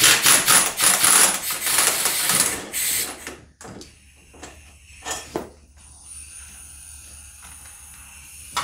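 Ratchet strap being cranked tight to take the weight of the engine: a fast, loud run of ratcheting clicks for about three and a half seconds, then a few softer single clicks.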